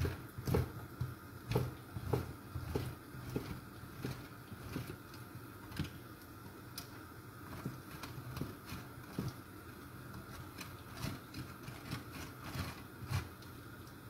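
Scamorza cheese rubbed against a metal box grater on a plastic cutting board: a run of short rasping strokes, about one a second and unevenly spaced, over a faint steady hum.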